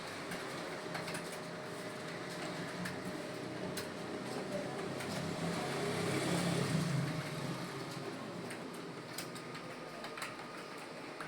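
Computer keyboard keys clicking as someone types, scattered light clicks over a steady room hum. A low murmur swells and fades about six to seven seconds in.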